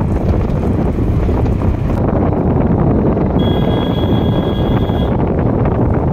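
Wind buffeting the microphone over the rumble of a moving vehicle: a loud, steady, low rumble. A faint, steady, high tone sits over it for about two seconds in the middle.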